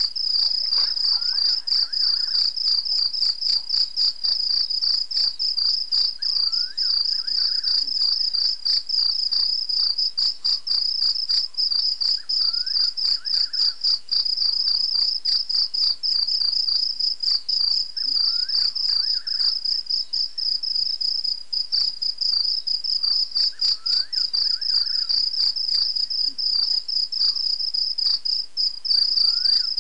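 Night insects chorusing in a steady, high, fast-pulsing trill. Faint rising calls come through underneath about every five to six seconds.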